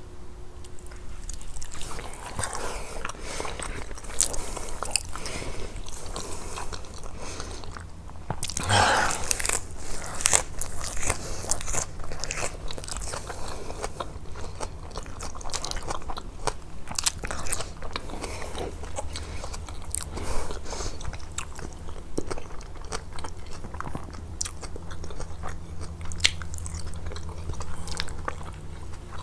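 Close-miked eating: repeated biting and chewing with many sharp clicks and mouth smacks, the loudest bite about nine seconds in, over a faint steady low hum.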